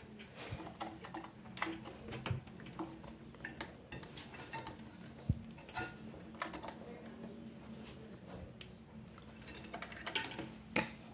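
Scattered small clicks, knocks and scrapes of metal and plastic as a CPU cooler is worked by hand onto its motherboard mount, over a faint steady hum.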